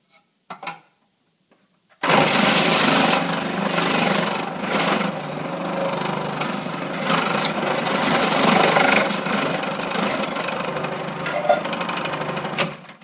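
Food processor motor running with its grating disc shredding a block of butter pushed down the feed tube. It starts about two seconds in after a few light clicks and switches off suddenly just before the end.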